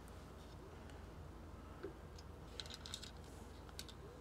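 Faint, scattered light clicks and rustles of a cable being handled and fed through a small cable clamp on a 3D printer's frame, with a short cluster of clicks about two and a half seconds in.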